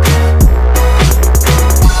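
Electronic background music with a deep held bass and a steady drum beat.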